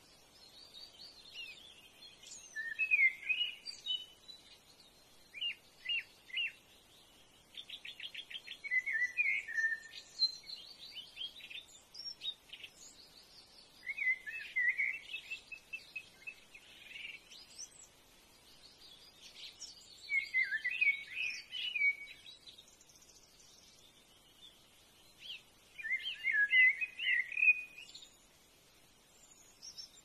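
Brown-hooded kingfisher calling: bursts of quick, repeated notes every few seconds, with fainter high chirps in between.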